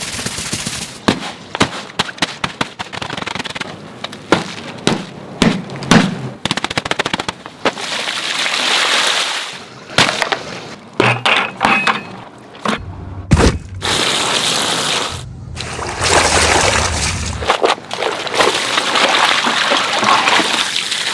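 A soot-covered plush toy being washed: a quick run of sharp wet slaps and clicks as it is scrubbed with a bar of soap, then longer stretches of rushing water and squelching as the soaked toy is trodden on and rinsed.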